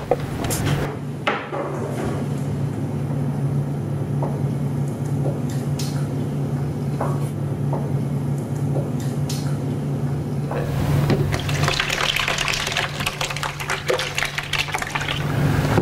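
A wet mixture of chopped oysters, oyster liquor and eggs being stirred with a spoon in a stainless steel bowl, with scattered light knocks. About ten seconds in, it is poured from the bowl into a plastic container in a sloshing pour lasting some five seconds, over a steady low hum.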